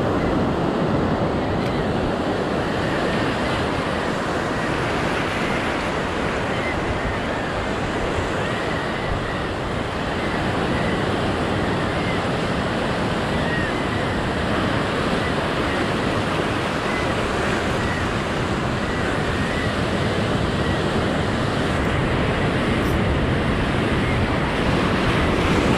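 Ocean surf breaking and washing over rocks close by: a steady, continuous rushing of waves.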